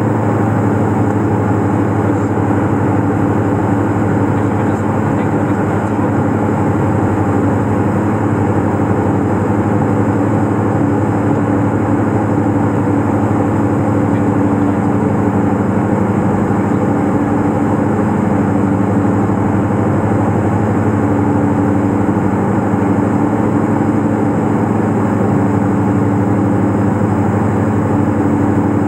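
Diamond DA42 twin-engine aircraft droning steadily in cruise or descent, heard inside the cabin. A low hum runs underneath, and one tone in the drone swells and fades every few seconds.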